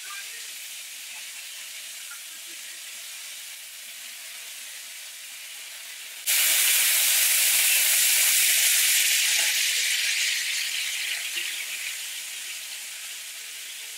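Steak tenderloins sizzling as they sear in a stainless-steel skillet. The sizzle jumps suddenly louder about six seconds in, then slowly dies back down.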